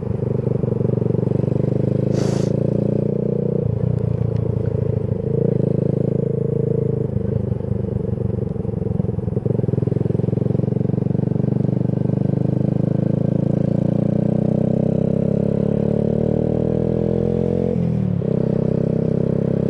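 Motorcycle engine running under way, heard from the rider's seat, its revs dipping and picking up a few times. Then the pitch climbs steadily for several seconds as the bike accelerates, breaking off sharply near the end as it shifts up. A short hiss comes about two seconds in.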